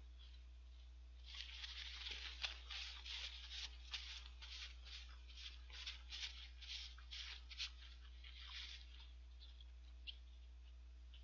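Paper napkin crinkling and rustling in the hands as fingers are wiped: a quick, irregular run of soft crackles that starts about a second in and stops about nine seconds in.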